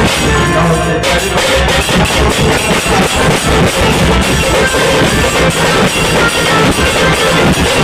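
Loud music with drums and instruments.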